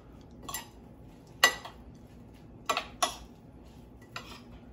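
A spoon clinking against a ceramic bowl as a chopped vegetable salad is stirred: about five sharp clinks at uneven intervals, the loudest about a second and a half in.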